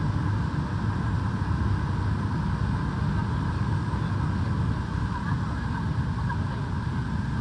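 Steady, unbroken rumble and hum of aircraft and ground machinery on an airport apron beside a parked airliner.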